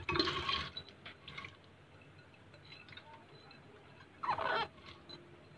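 Soaked chana dal poured from a glass bowl into a pressure cooker, the wet split chickpeas sliding out and pattering onto the pot's bottom in two short spells, near the start and about four seconds in, with a few faint ticks of stray grains.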